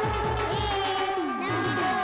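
Live Marathi devotional folk music: a harmonium holding steady notes over a drum beat of about three strokes a second, with sliding melodic lines above.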